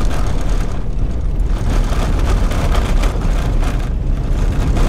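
Inside a four-wheel-drive on a corrugated dirt road: a steady heavy rumble of tyres and engine, with constant rattling and knocking from the car jolting over the corrugations.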